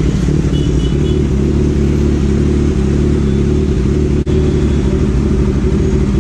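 Kawasaki Z900's inline-four engine idling steadily at a standstill, with surrounding road traffic.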